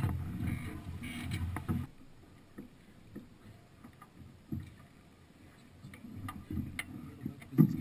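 Wind and water noise on a sailing yacht's deck-mounted action camera. It rumbles loudly, then drops suddenly about two seconds in to a quieter wash with scattered knocks and clicks. It builds again near the end, with one sharp knock.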